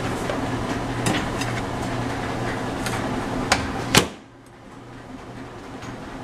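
A takeout food box set into a microwave oven with a few light knocks over a steady low hum, then the microwave door shut with a sharp bang about four seconds in, after which it goes much quieter.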